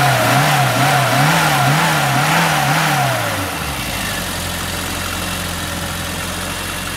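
An engine revved up and down over and over, then dropping to a steady idle about three and a half seconds in.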